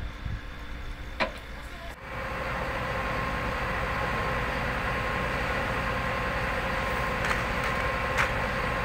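A steady machine hum over an even rushing noise begins suddenly about two seconds in, after a quieter stretch with one sharp snap. A couple more sharp snaps come near the end.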